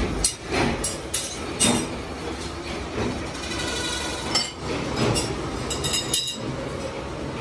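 Machine-shop noise: machinery running steadily, with frequent sharp metallic clinks and knocks of steel parts being handled, several in quick succession near the end.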